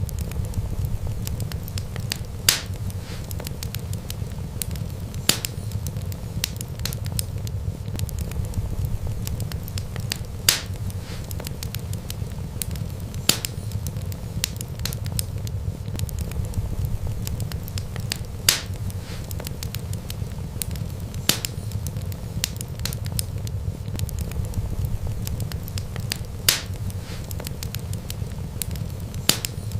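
Wood fire crackling, with a steady low rumble of burning and a sharp pop every few seconds among the small crackles.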